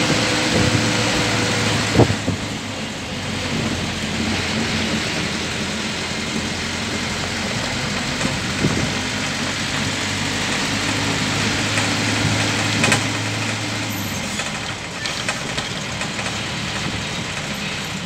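Motor vehicle engine running steadily with road noise while driving, with a low hum that eases off near the end. Two sharp knocks stand out, one about two seconds in and one near thirteen seconds.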